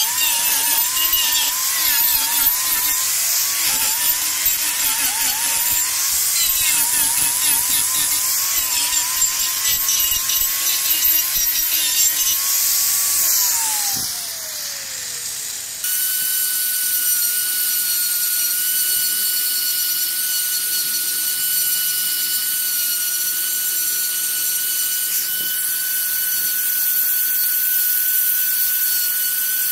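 A handheld power grinder carves wood, its pitch wavering under load, then winds down with a falling whine about 13 seconds in. After a brief quieter moment, an electric die grinder with a small burr runs with a steady high whine as it carves fine detail.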